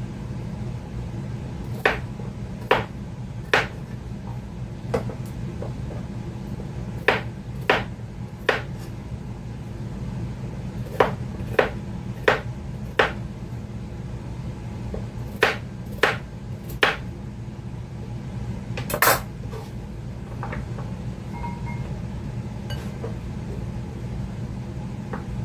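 Kitchen knife chopping carrots on a cutting board: sharp, uneven chops, often two or three close together, over a steady low hum.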